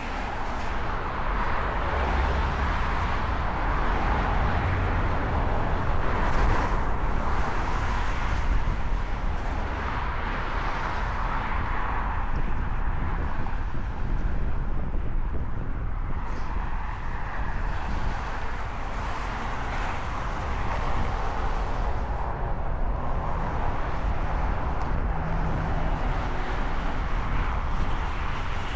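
Wind buffeting the microphone, over a steady rushing outdoor noise.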